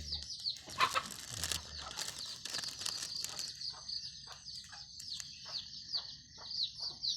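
Small birds twittering continuously with quick, high, falling chirps, over a steady run of short, lower scratchy sounds about three a second.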